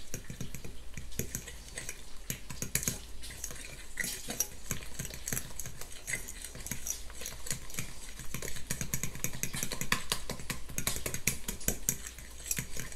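Metal fork beating eggs, grated pecorino romano and black pepper in a large glass bowl: rapid, irregular clicking and scraping of the tines against the glass.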